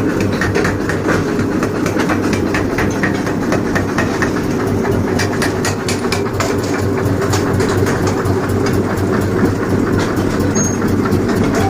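A machine running steadily with a low hum and a rapid, uneven clatter of light clicks.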